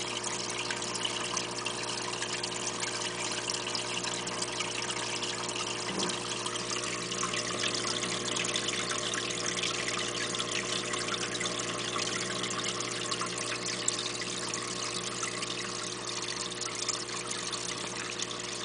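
Aquarium water trickling steadily, with a steady low hum underneath.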